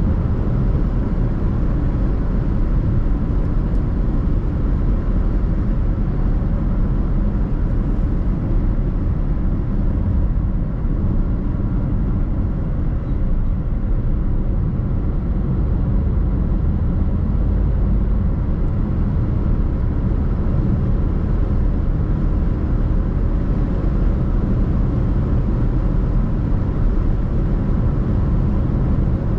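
Steady rumble and road noise of a car driving, unchanging throughout.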